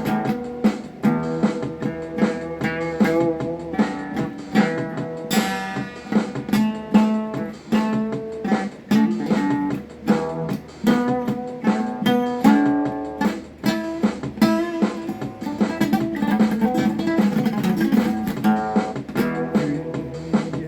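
Instrumental guitar break in a song: a guitar playing a busy run of quick plucked notes and strums.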